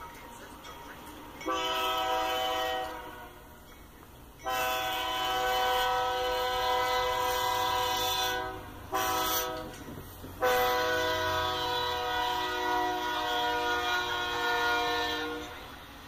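Air horn of an approaching BNSF freight locomotive sounding the grade-crossing warning. It gives four chord blasts: two longer, a short third, and a final blast held longest, about five seconds.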